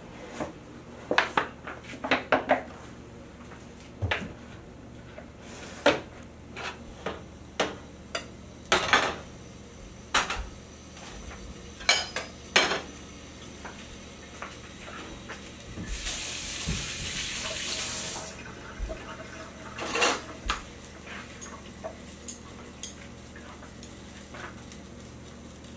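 Kitchen bowls, pans and utensils clinking and knocking in scattered sharp strikes, with a steady hiss for about two seconds midway.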